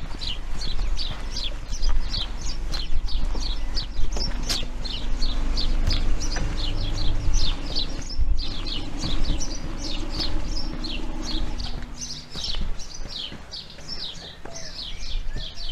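Birds chirping in a rapid, continuous run of short, high, falling chirps, several a second, with footsteps on pavement. A low, steady hum joins in from about four seconds until about twelve seconds in.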